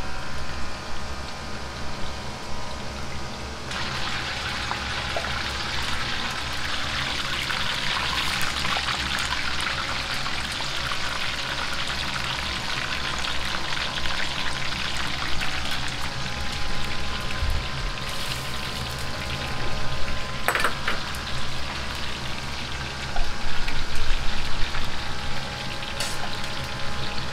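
Starch-coated chicken pieces deep-frying in a wok of hot oil: a dense sizzle that starts about four seconds in and carries on, swelling near the end, over a steady low hum. A sharp click sounds once about twenty seconds in.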